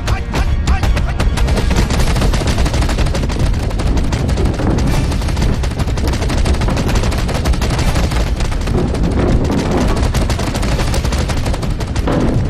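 A rapid, unbroken flurry of sharp hand-strike sound effects from a Wing Chun fight exchange of punches and blocks, many impacts a second with no pause.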